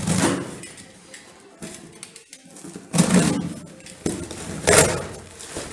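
A small cardboard box being cut open with a utility knife: the blade slitting packing tape and scraping cardboard in three short bursts.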